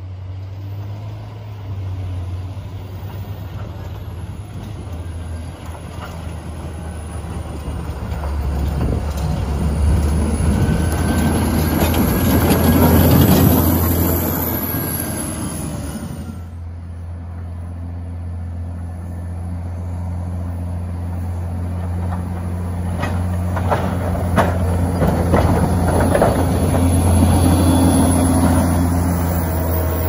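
John Deere 770G motor grader's diesel engine running steadily as it plows snow, loudest as it passes about thirteen seconds in, with the rushing scrape of its blade through the snow. A few sharp clanks in the second half.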